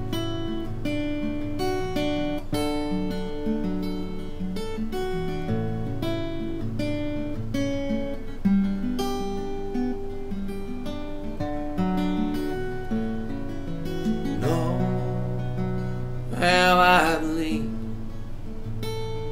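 Acoustic guitar played solo, picked notes and chords ringing through an instrumental break. Near the end a short wordless sung note comes in over the guitar.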